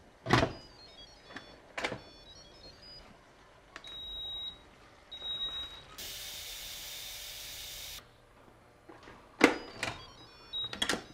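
Nutricook electric pressure cooker: the lid is locked shut with a sharp click, and the cooker plays a short electronic jingle of quick high tones, followed by two single beeps. A steady two-second hiss follows, then the lid handle clicks again near the end with another short jingle as it is turned to open.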